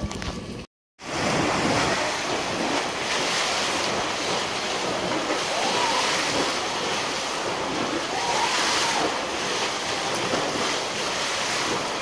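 Artificial waves in a wave pool rushing, churning and splashing against the pool wall: a loud, steady roar of moving water that starts after a moment of silence about a second in. Faint distant voices rise above it now and then.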